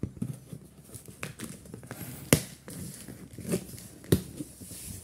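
Cardboard box being pulled open by hand: packing tape and cardboard flaps tearing and crinkling, with scattered sharp snaps, the loudest a little over two seconds in and again about four seconds in.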